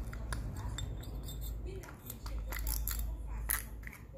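Daiwa Luviat spinning reel being worked by hand: a run of small, irregular clicks and clinks over a low handling rumble.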